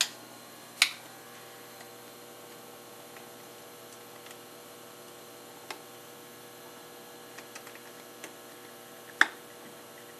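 Scattered sharp clicks and taps of hands handling a metal split mold, its rubber membrane and plastic tubing: a loud one about a second in, another near the end, and a few small ones between. Under them runs a faint steady hum.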